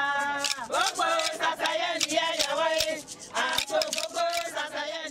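Women singing together in high voices with wavering, bending pitch, over irregular sharp percussive strikes.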